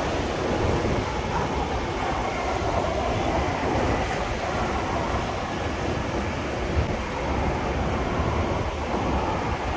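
Jet airliner's engines heard as a steady, even roar.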